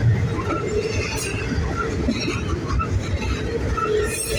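Norfolk Southern double-stack freight train rolling past: a steady rumble of wheels on rail with short, scattered wheel squeals.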